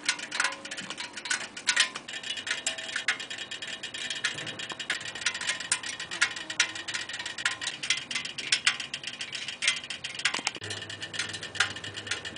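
A freshly ridden Harley-Davidson Sportster 1200's exhaust and air-cooled V-twin ticking and pinging as the hot metal cools, with many sharp metallic ticks at an uneven pace, several a second.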